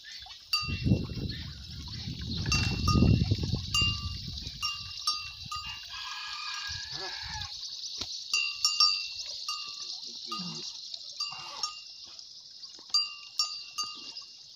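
Cattle in a corral: a cow lowing loudly for a few seconds near the start, with a shorter low call later on. A bell on a cow's collar clinks again and again as the animals walk.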